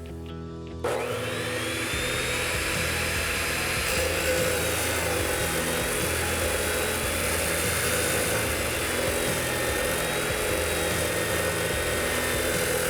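Ridgid 14-inch abrasive chop saw starting up about a second in, then running steadily with a high whine and grinding as its abrasive wheel cuts through cast iron pipe.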